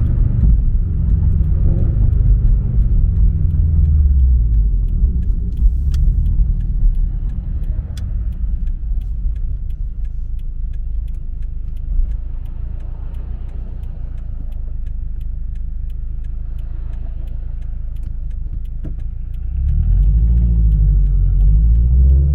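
Subaru BRZ's flat-four engine through a MAperformance 3-inch catback exhaust, heard from inside the cabin while driving: a low rumble that climbs in pitch under acceleration at the start, settles quieter and steadier through the middle, and pulls louder again near the end.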